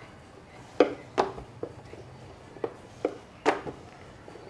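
Wooden rolling pin rolling out dough on a rolling board, knocking against the board in a handful of sharp, irregular knocks, the loudest near the end.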